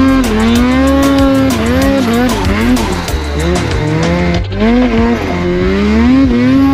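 Two-stroke mountain snowmobile engine revving up and down as the sled is ridden through deep powder, its pitch rising and falling every second or so with the throttle.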